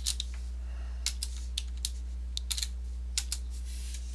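Computer keyboard being typed on: scattered key clicks in short, irregular runs, over a steady low hum.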